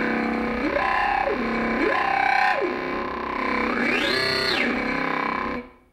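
Synthesizer test tone for a Rubens flame tube, sliding down and back up in pitch roughly once a second, with a higher, wider sweep about four seconds in. It cuts off near the end.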